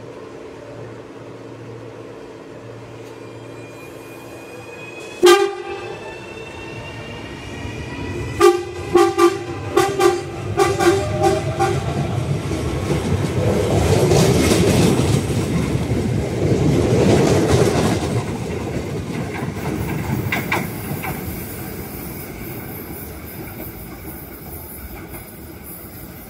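CAF electric multiple-unit train humming at the platform, then sounding its horn: one short blast about five seconds in and a series of short toots from about eight to eleven seconds, with a rising electric whine as it pulls away. The rumble of the train running on the track then builds and fades.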